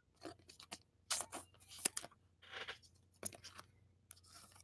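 Trading cards being handled and slid against one another: faint, short, irregular rustles and scrapes of card stock, about a dozen in a few seconds.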